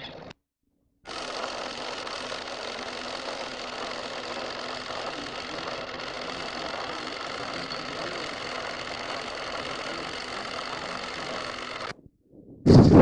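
Steady mechanical whirring clatter of 8 mm film machinery. It starts abruptly about a second in and cuts off sharply near the end. A loud rush of noise begins right at the end.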